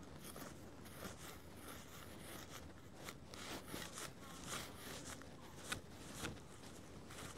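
Faint crunching and scraping of a small hand blade cutting into grass and turf, in a run of short, irregular strokes.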